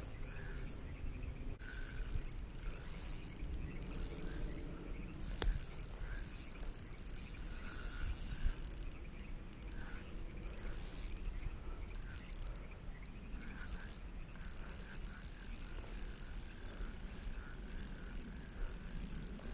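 Insects calling in repeated high-pitched bursts, each lasting about half a second to a second, with fainter lower chirps and a steady low rumble underneath.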